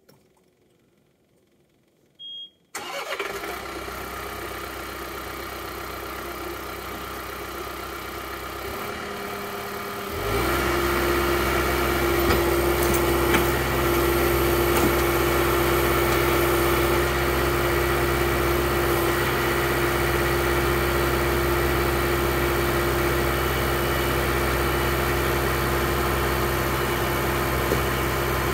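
A John Deere compact tractor's diesel engine is cranked briefly and starts, then idles. About ten seconds in it is throttled up and runs steadily at the higher speed while the front loader lifts a tree stump.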